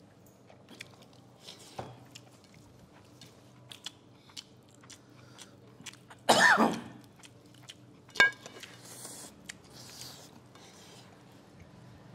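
People chewing and eating rice and curries by hand, with many small mouth clicks and smacks. A brief loud vocal noise comes about six seconds in, and a sharp click a little after eight seconds.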